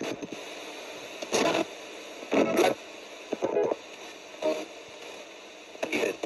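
Ghost box radio sweeping rapidly across stations: a steady hiss of static broken by about five short snatches of broadcast sound, each under half a second. The fragments are what the operator listens to for spirit replies.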